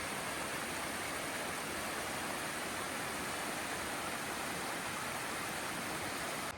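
Steady rushing of flowing water, an even roar with no break, which stops abruptly at the end.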